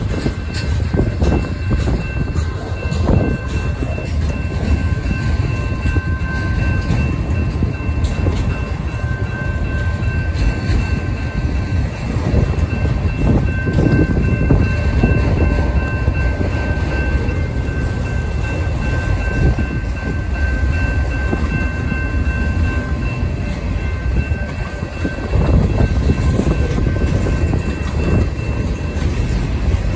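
Freight train cars rolling past close by: a steady low rumble of steel wheels on rail, with knocks and clacks over the rail joints. A faint thin high whine runs through much of it.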